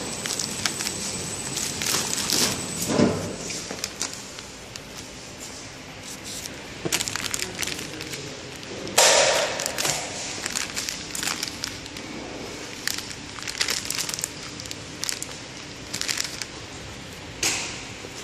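KT450 cucumber packaging machine running, with irregular crackling and crinkling of plastic wrapping film over a faint steady machine background. The loudest crinkle comes about halfway through, and another sharp one comes near the end.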